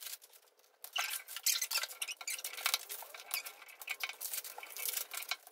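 Hands twisting and prying open hard plastic Mini Brands capsule balls: a dense run of small plastic crackles and clicks.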